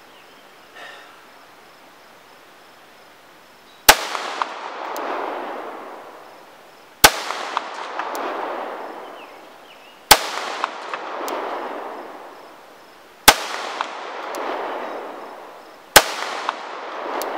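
Five handgun shots from a CZ 75 B pistol, spaced about three seconds apart, starting about four seconds in. Each shot is followed by a long rolling echo that dies away over two to three seconds.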